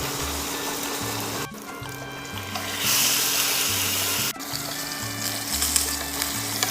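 Steak searing in an oiled pan, a steady sizzle that swells louder for about a second and a half partway through and again near the end, under background music with a stepping bass line.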